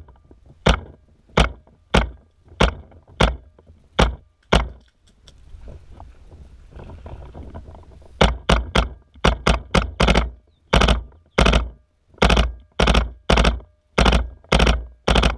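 Planet Eclipse Gtek electronic paintball marker firing: single shots at a steady pace of about one every 0.6 s for the first five seconds, then after a short lull a faster string of shots, often in quick pairs.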